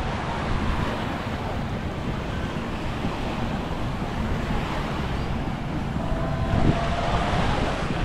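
Small waves washing onto a sandy shore, with wind buffeting the microphone and a low rumble from the wind.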